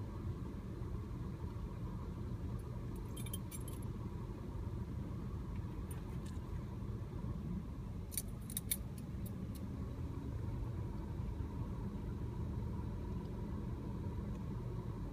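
Steady low rumble of a car cabin with the car running. Light metallic jingles from the metal ID tags on a poodle's collar come about three seconds in and again, more strongly, around eight to nine seconds in.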